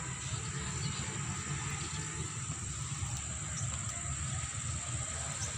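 Steady outdoor background noise: a continuous low rumble with a thin, steady high hiss above it, and no distinct events.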